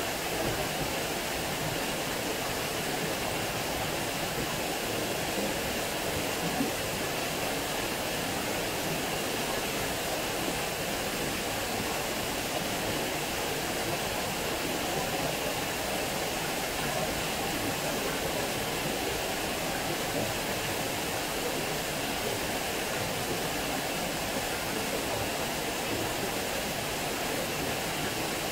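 Water falling over a small weir into a channel, a steady rushing splash.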